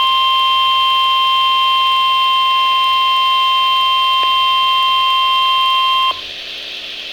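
Weather radio warning alarm tone, a single steady high tone that cuts off suddenly about six seconds in. A quieter radio hiss follows, ahead of the broadcast warning voice.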